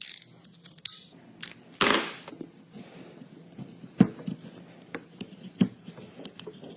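Handling of a BMW E90 plastic car key fob: irregular sharp clicks and short scrapes, the loudest a rasping scrape about two seconds in and a crisp click about four seconds in.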